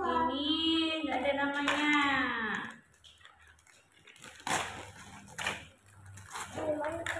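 A long drawn-out vocal exclamation that bends up and down in pitch for the first few seconds, then gift-wrapping paper being torn open in two quick rips about halfway through, followed by a short voice near the end.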